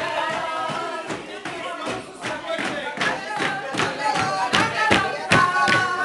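A group of women singing and shouting together while clapping their hands in a steady beat, about two to three claps a second.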